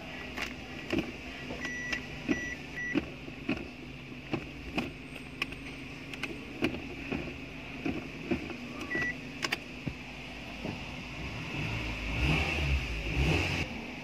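Suzuki APV automatic transmission humming steadily with a high whine over the idling engine, while the gear selector clicks repeatedly through its detents; a louder low rumble swells near the end. The hum is the symptom of oil starvation from a damaged transmission oil pan and strainer.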